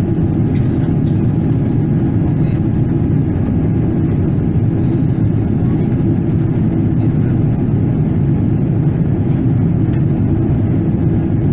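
Steady deep rush of cabin noise inside a Boeing 777-300ER in flight: its GE90 turbofan engines and the air streaming past the fuselage, heard through the cabin wall.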